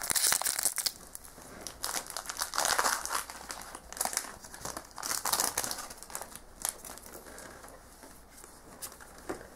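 Foil booster-pack wrapper being torn open and crinkled by hand, in several crackly bursts over the first six seconds, then fainter rustles and clicks.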